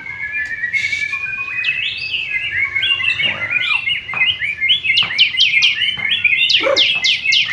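White-rumped shama (murai batu) singing: a long held whistle at first, then a run of varied whistled phrases that quicken into rapid falling sweeps, about four or five a second, from about five seconds in.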